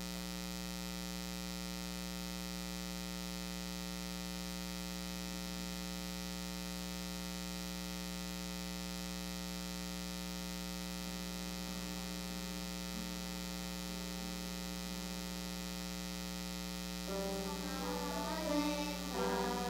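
Steady electrical mains hum for about seventeen seconds. Near the end, children begin to sing.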